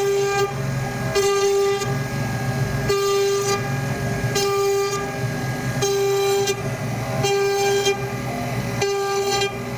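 CNC router's stepper motors whining in several steady pitched tones, with a brighter, harsher burst about every one and a half seconds as the axes move back and forth.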